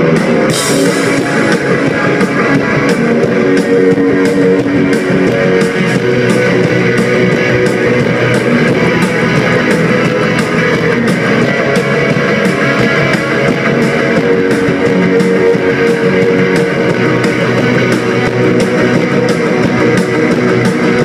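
Rock band playing live, amplified electric guitars and bass over a steady drum beat.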